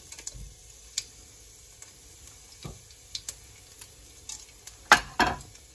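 Scattered small pops and ticks of a tempering frying in hot coconut oil in a steel kadai: mustard seeds, urad dal, chana dal and cumin, with dried red chillies being broken by hand into the pan. Two louder cracks come about five seconds in.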